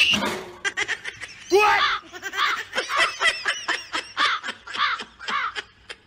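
A person laughing in quick, high-pitched giggles, about three a second, at a cat startled by a cucumber. A short loud burst comes at the very start.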